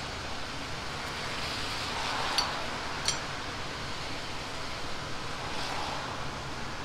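Steady hiss of a ramen kitchen over a steaming noodle boiler. Water splashes from a mesh noodle strainer as noodles are tipped and lifted into soup bowls, with two sharp metal clinks a little past the middle.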